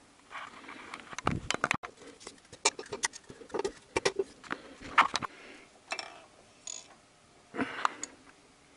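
Irregular metallic clicks and clinks of hand tools and loose engine parts being picked up and handled, with a few short scrapes.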